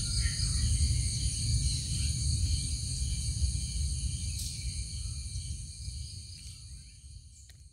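Steady high-pitched chorus of insects, such as crickets, over a low rumble, fading out gradually near the end.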